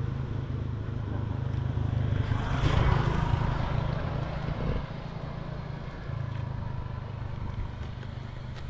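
Motorcycle running along a road, with a steady low rumble of engine and wind on the microphone, easing off a little about five seconds in.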